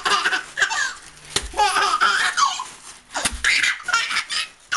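Baby laughing hard in repeated bursts of high, rising and falling belly laughs. A few sharp crackles cut in between them, from the paper that sets him laughing.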